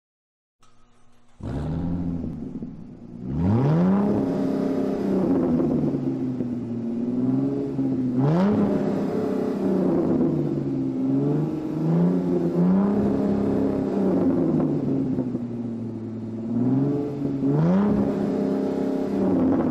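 Car engine revving over and over: the pitch climbs quickly, holds high and drops back, again and again. It starts about a second and a half in, after a moment of silence.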